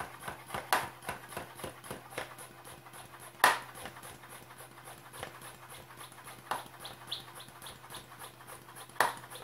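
Hand air pump being worked in quick, even strokes to build pressure in place of a compressor, with a few sharp knocks. A bird chirps a few times near the end.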